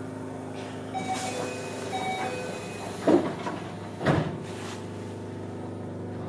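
Inside a Keio 7000 series electric train car standing at a station, the car's equipment hums steadily. A short two-note chime sounds twice, then the passenger doors slide shut with two heavy thuds about a second apart, just before departure.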